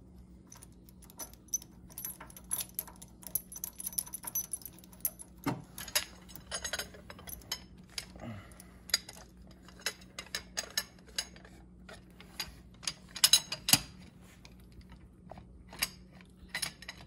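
Metal chain and steel puller clinking and jangling as the puller is threaded into a snowmobile engine's PTO stub shaft and a slide hammer is hooked onto the chain. Irregular sharp clicks throughout, with a louder run of clanks about 13 seconds in, over a faint steady low hum.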